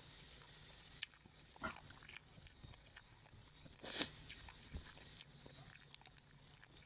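Close mouth sounds of eating: chewing with small wet clicks, then a short loud crackling tear about four seconds in as a cooked prawn's shell is pulled apart by hand.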